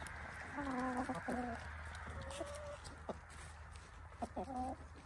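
Hens clucking while they feed, in three short bouts of calls: about a second in, around the middle, and again near the end.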